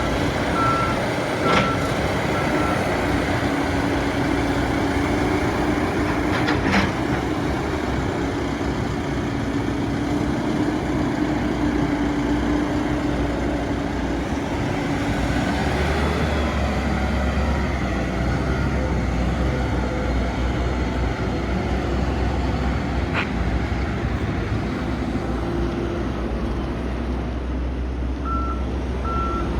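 Lonking 84C backhoe loader's Perkins diesel engine running under load, its reversing alarm beeping at the start and again near the end. The engine note shifts to a deeper rumble about halfway through, with a few sharp knocks along the way.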